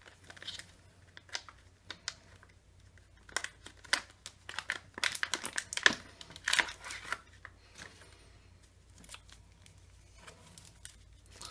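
Clear plastic blister pack of trading cards crinkling and crackling as it is worked open by hand, in irregular crackles that are busiest in the middle, with the packs and cards inside handled near the end.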